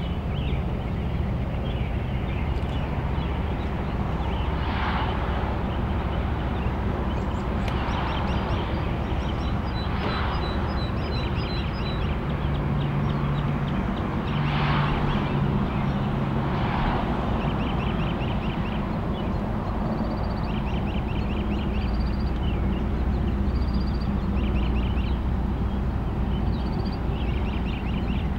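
Low steady rumble of a CSX diesel locomotive approaching in the distance, under evening insects chirping in short repeated bursts. A handful of louder, rough calls rise over it, several seconds apart.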